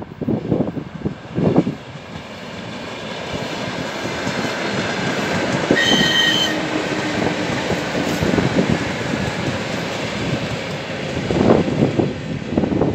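ED9M electric suburban train approaching and running past close by, its wheel and running noise building as it nears. A brief high-pitched tone sounds about six seconds in. Gusts of wind buffet the microphone at the start and again near the end.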